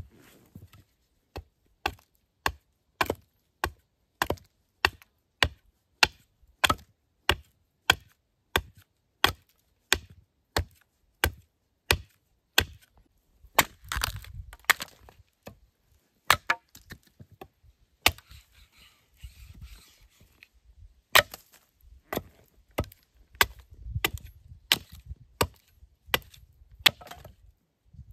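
A tool striking wood in a steady series of sharp blows, about one and a half a second, with a short break about two-thirds of the way through.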